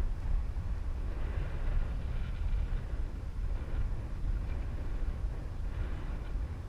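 Strong wind buffeting the microphone as a steady low rumble, over the wash of surf that swells now and then.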